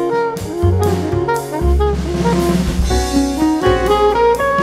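Jazz with saxophone and drums playing from a vinyl LP on a 1965–66 Sylvania Exponent 4/40 solid-state record player.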